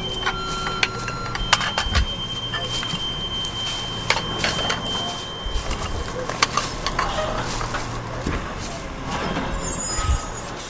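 A dense collage of layered sound effects: a low vehicle-like rumble under several steady tones that start and stop, with scattered clicks and thumps throughout.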